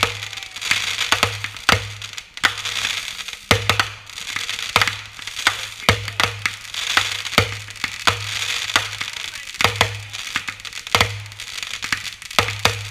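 Consumer fireworks firing in a rapid sequence: sharp bangs of shells launching and bursting, many times at uneven intervals, over continuous hissing and crackling of burning stars and fountains.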